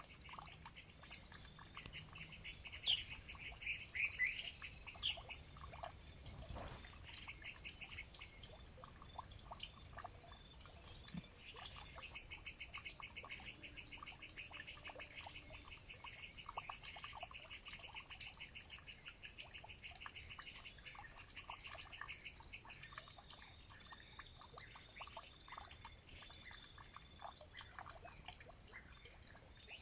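Wild birds singing and calling: fast trills and short, high, repeated chirps, with a louder run of high whistled notes near the end.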